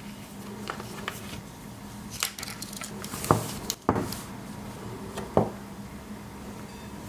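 Small clicks and rustles of hands working a Swiss Army knife and a length of cord, with three sharper snaps, the loudest about three seconds in, over a faint steady hum.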